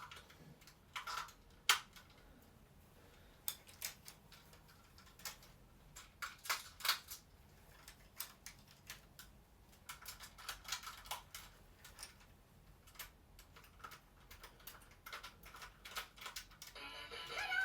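Irregular clicks and short scrapes of a battery-powered plastic toy being handled. Near the end, the toy's electronic tune starts up in short stepped notes.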